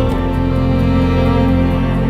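Slow, tender background music with sustained chords that change about once every couple of seconds.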